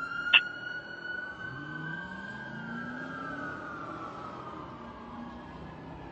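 Fire engine siren in a long wail that holds steady, then slowly falls away after about three seconds, over the truck's engine revving up. A brief sharp blip sounds about half a second in.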